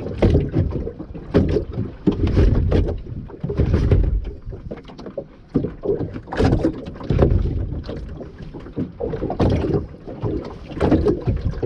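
Rough sea slapping against a small boat's hull, with wind buffeting the microphone. It comes in irregular surges broken by sharp knocks.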